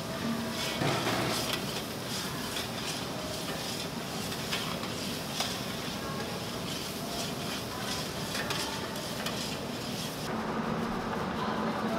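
A spatula stirring and scraping chopped vegetables in a large steel pot, with a light sizzle of frying underneath and many short scrapes against the metal. Near the end this gives way to a steady low hum.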